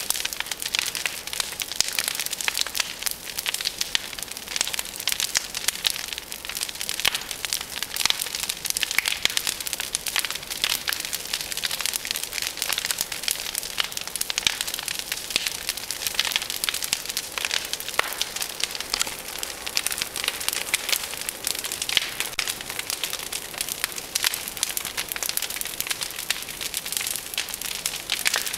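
A large brush pile of tree branches burning in a bonfire, with dense, fast crackling and popping.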